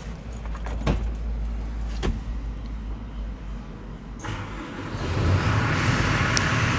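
Kobelco SK200-8 excavator's diesel engine running, with a few clicks early on, then getting louder about four seconds in.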